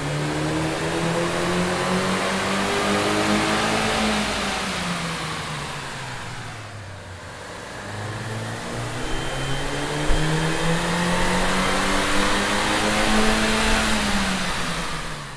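Mini Cooper S's 1.6-litre turbocharged four-cylinder engine running under load on a chassis dyno, heard twice: first with the stock OEM intake, then, from about seven seconds in, with an AEM cold air intake fitted. Each time the engine note holds high and then falls as the revs drop.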